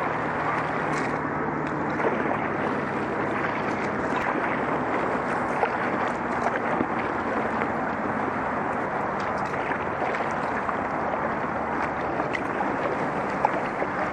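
Steady wash of moving water and wind noise around a kayak gliding down a river, with a few faint knocks along the way.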